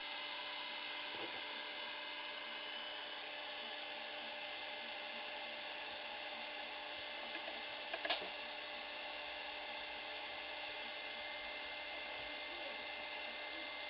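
Small handheld heat gun running steadily, its fan motor giving a constant whine and hiss while it warms old adhesive on a plastic laptop bezel. A single small click about eight seconds in.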